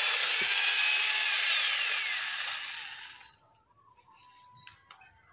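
Small portable chainsaw cutting through a branch, its motor whine rising and then sliding down in pitch, before the saw stops and the sound dies away about three seconds in.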